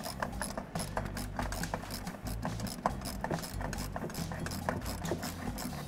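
Hand ratchet with an 8mm socket clicking irregularly as it tightens the screw of a hose clamp on the intake air tube.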